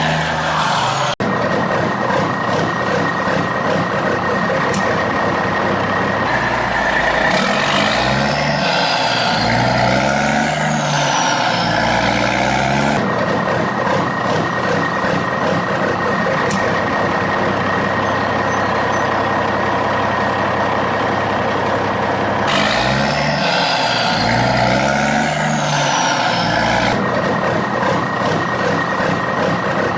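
Truck engine sound running steadily with a thin high tone over it, revving up and down in repeated swells twice.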